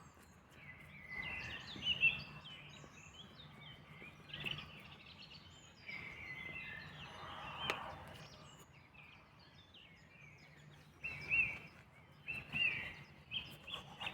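Small birds chirping and singing in short, scattered phrases, over a faint steady low hum, with a single sharp click about two-thirds of the way through.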